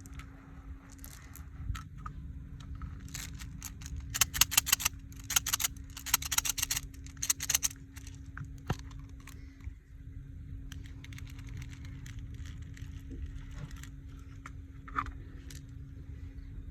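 Quick runs of small, sharp clicks and rattles, thickest in the middle, with scattered single clicks before and after, over a steady low hum.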